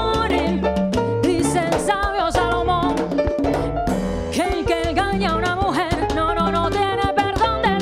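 Cuban son-style band music without lyrics: a bass line, percussion and a melody line with vibrato.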